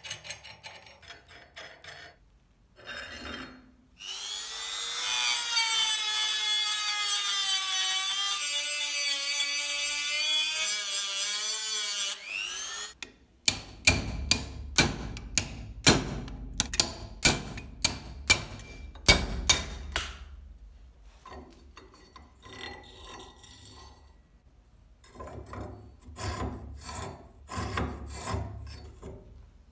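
Rusty adjusting nut of a vintage Gedore corner pipe wrench grating as it is turned along its threaded rod. Then a power drill runs loaded for about eight seconds with its pitch wavering, cutting into the pivot pin. Then a hammer strikes a steel punch about a dozen times, roughly twice a second, to drive the pin out, followed by lighter metal clatter.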